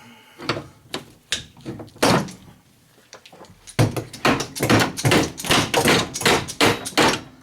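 Knocks and bangs from work on a refrigerator's cabinet as jammed copper tubing is worked free: a few separate knocks at first, then a quick run of about three a second in the second half.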